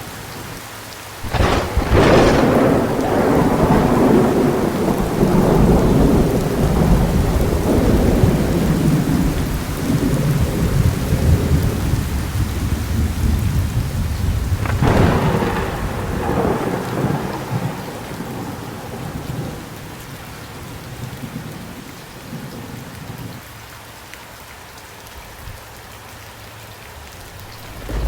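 Thunderstorm with steady heavy rain: a sharp thunder crack about a second and a half in rolls into a long rumble, and a second crack about fifteen seconds in rumbles away more briefly, leaving rain alone near the end.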